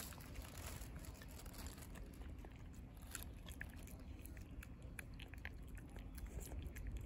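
A cat eating cat food from a bowl: faint, irregular crunching clicks of chewing, more frequent in the second half, over a low steady rumble.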